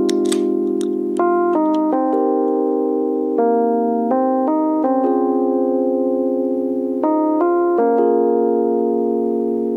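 Background music: held keyboard chords that change every half second to a second or so.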